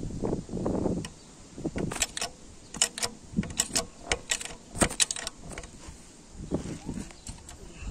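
Irregular sharp metallic clicks and clinks of a hydraulic bottle jack and steel parts being handled at a tractor frame joint, used here to press out a stuck pivot bushing. Duller low knocks come near the start and again near the end.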